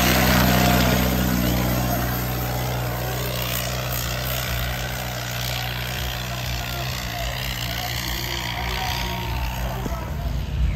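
John Deere 5310 tractor's three-cylinder diesel engine running steadily under heavy load as it drags a weighted sledge. The engine is loudest at first and eases slightly after about two seconds.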